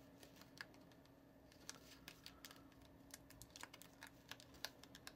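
Near silence with faint, scattered small clicks and ticks from a thin plastic sheet of toy fishing hooks being handled in the fingers, over a faint steady hum.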